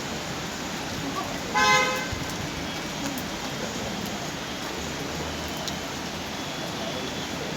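A vehicle horn honks once, briefly, about a second and a half in, over steady street noise of traffic and rain.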